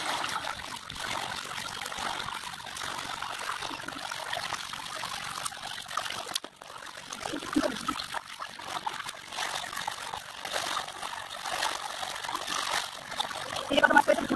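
Water flowing in a shallow current, a steady trickling rush: pond water being let out by pump, with a few brief louder moments.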